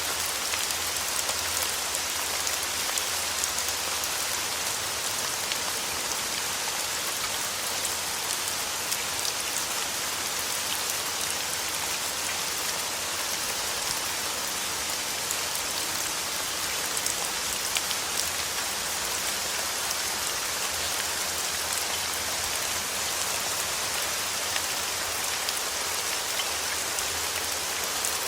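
Steady rain falling on a surface: a constant hiss with many small drop ticks scattered through it.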